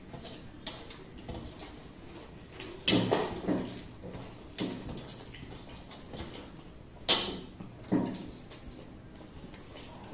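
Eating sounds from two people eating rice and chicken curry by hand from metal plates: a low background broken by several short, sharp noises, the loudest about three seconds in and again about seven seconds in.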